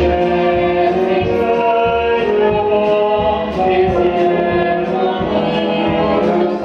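Live stage singing with a pit orchestra accompanying, voices and instruments holding long sustained notes.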